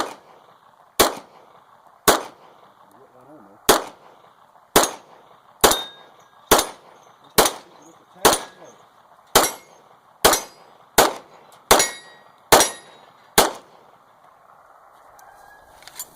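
CZ 75 9mm pistol firing about fifteen shots at a steady pace, roughly one a second, with hits on steel target plates ringing briefly after some of the shots. The string stops a little over a second before the end.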